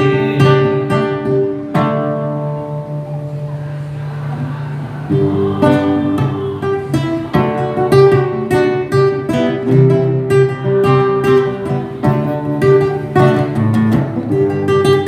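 Acoustic guitar strumming chords. One chord is left ringing and fades for a few seconds, then steady rhythmic strumming picks up again about five seconds in.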